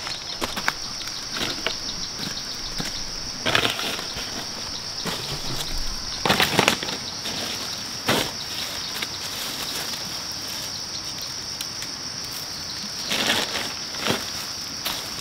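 Plastic carrier bag full of plastic bottles rustling and crinkling in several short bursts as litter is gathered into it, over a steady high drone of insects.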